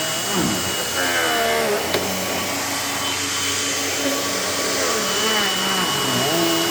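Panasonic MC-UG583 upright vacuum cleaner running on a rug, with a steady high whine. Its motor tone dips and rises shortly after the start and again near the end, and there is a single click about two seconds in.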